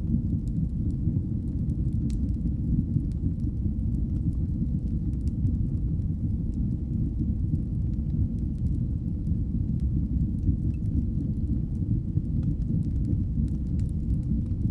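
Fire burning in a fireplace: a steady low, rushing roar of the flames with faint, scattered crackles and pops.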